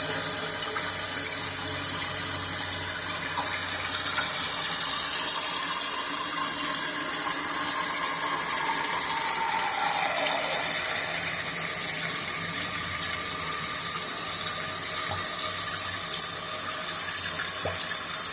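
Toilet tank filling through its fill valve after a new installation: a steady hiss of water running in, with a faint tone that falls in pitch about halfway through.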